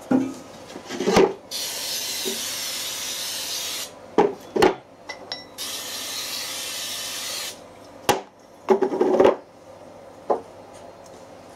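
Aerosol brake cleaner sprayed in two bursts of about two seconds each, a steady hiss, washing out a bearing housing. Metal parts clink and knock between and after the bursts as the housing and bearing cup are handled on a steel plate.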